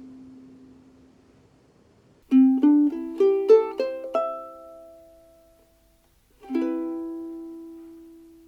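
Seilen SLT-104vm tenor ukulele with a vintage Honduras mahogany body, played unaccompanied. A quick rising run of about seven plucked notes is left to ring, then a single final chord rings out and slowly fades.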